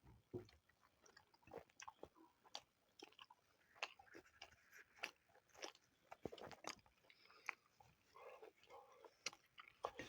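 Close-up eating sounds: people chewing and biting food, with irregular sharp crunches and mouth clicks.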